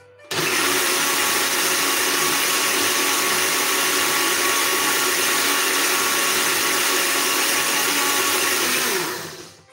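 Countertop jug blender motor running at a steady speed, puréeing raspberries for a coulis. It switches on just after the start and spins down near the end.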